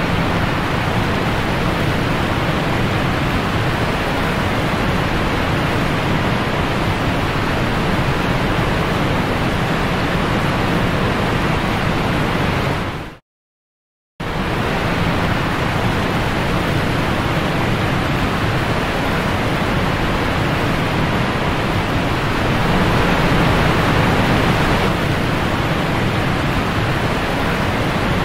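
River rapids rushing steadily, a loud even roar of fast white water. The sound cuts out completely for about a second midway, then resumes unchanged.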